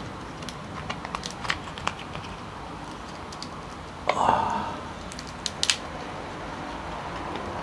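Cooked king crab leg shell being cracked and pulled apart by hand, giving scattered sharp cracks and clicks, with a louder, longer burst about four seconds in and a quick cluster of clicks a second or so later.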